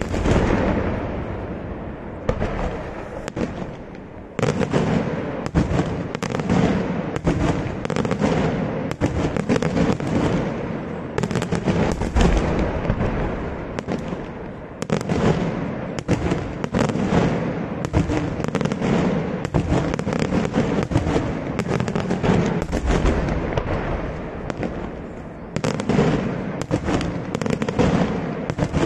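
Daytime fireworks display: aerial shells and firecrackers bursting in a rapid, dense barrage of loud reports, easing off briefly a few seconds in and again near the end before picking back up.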